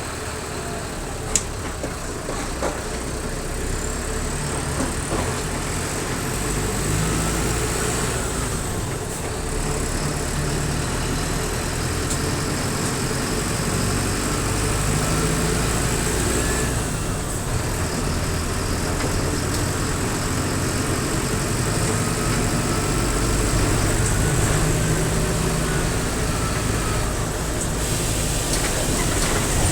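Mercedes-Benz OF-1722M bus's diesel engine running, its pitch slowly rising and falling, with a steady high whistle over it. A single sharp knock sounds about a second in.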